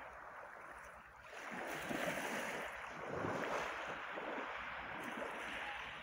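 Small sea waves breaking and washing up over a pebble beach, the wash swelling about a second in and easing off near the end.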